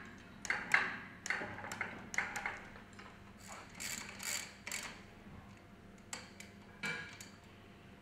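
Short, irregular metallic clicks and taps of a hand wrench on bolts inside a pump's motor bracket, with a few longer scraping strokes about halfway through.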